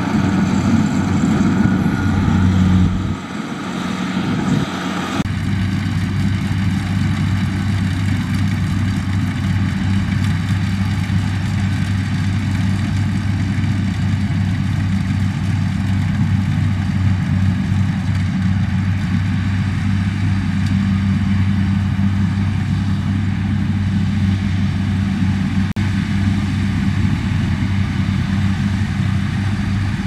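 Kubota DC70 combine harvester's diesel engine running steadily, a constant low hum. The sound changes abruptly about five seconds in and then holds steady.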